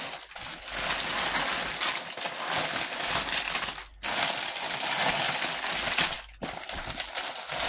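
Thin clear plastic bags crinkling and rustling as packets of silicone resin moulds are handled and set down, with two short breaks.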